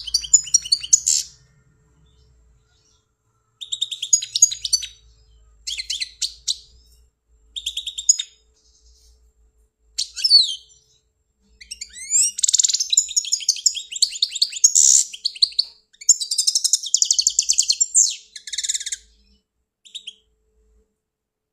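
European goldfinch singing: bursts of rapid, high twittering and trilled phrases separated by short pauses, running into a longer stretch of song in the second half and ending with a single short note.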